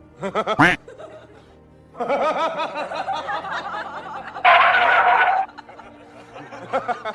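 People laughing over background music, with a loud shrill cry lasting about a second a little past the middle.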